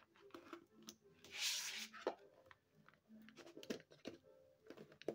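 Faint clicks of a AA battery being handled and pressed into a plastic quartz clock movement, with a short rustle about a second and a half in, over faint background music.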